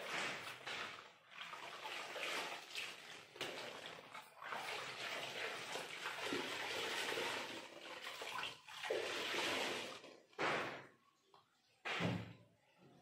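Wet laundry being handled in a tub of water: irregular splashing, sloshing and wet cloth rustling. Two short, louder knocks come near the end.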